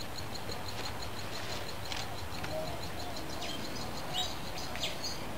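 Rural outdoor ambience: a high chirping call repeating about four or five times a second, with a few short bird chirps around four and five seconds in, over a steady low background rumble.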